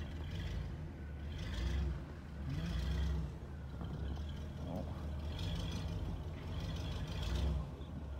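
1983 Buick Electra's engine working under load, its sound rising and falling in several surges, as the car torques its way through deep snow.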